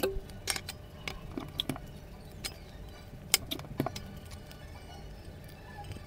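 Light metallic clicks and taps from tuna cans being handled, about ten scattered through the first four seconds, over a low steady hum.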